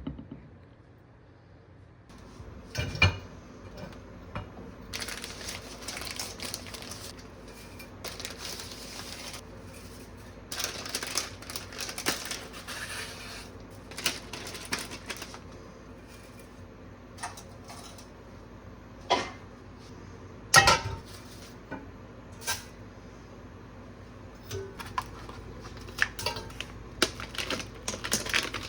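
Kitchen work with dishes, pots and utensils clinking and knocking at irregular intervals, with a few sharper knocks about 3, 19 and 21 seconds in and stretches of scraping and rustling between them.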